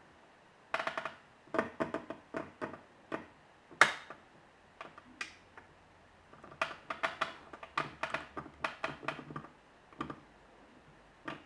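Irregular small clicks and taps of hard objects being handled, coming in clusters, with a sharper tap about four seconds in and a busy run of clicks in the second half.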